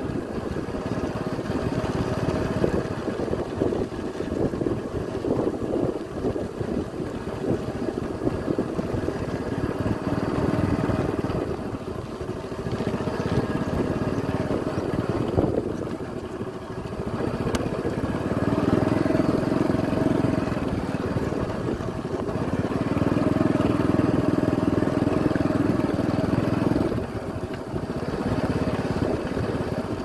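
Motorcycle engine running at low speed along a rough dirt track, with wind buffeting the microphone. The engine note swells twice in the second half.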